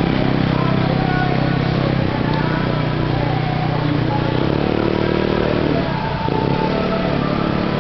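A vehicle engine running steadily, its pitch shifting slightly a few times, with voices in the background.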